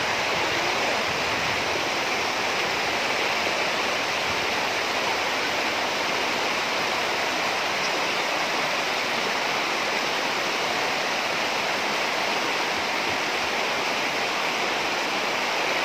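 Fast-flowing floodwater rushing over a road and churning around a trailer and tractor wheels: a steady, unbroken rush of water.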